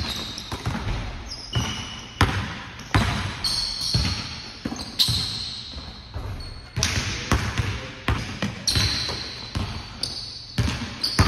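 Basketball bouncing on a hardwood gym floor as it is dribbled and played, with sneakers squeaking on the court. The bounces come at irregular intervals and echo around the hall.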